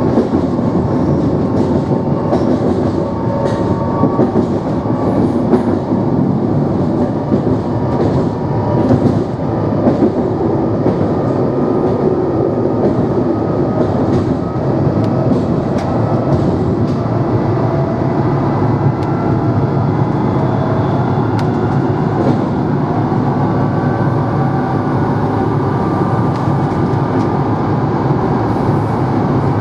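NMBS/SNCB AM96 electric multiple unit running at speed: a steady rumble of traction and running gear with faint tones that drift slowly up and down, and scattered clicks from the wheels on the track.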